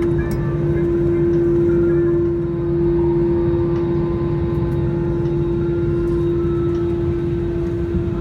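Airbus A320-214 cabin noise while taxiing after landing: its CFM56 engines running at idle, a steady hum with one constant mid-pitched tone over a low rumble.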